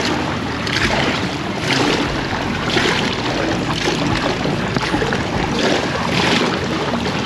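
Swimming-pool water sloshing and lapping close to the microphone, swelling about once a second.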